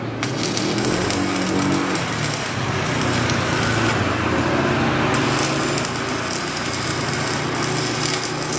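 Stick arc welding on a steel motorcycle frame bracket: a loud, continuous crackling hiss from the arc, over a steady low machine hum.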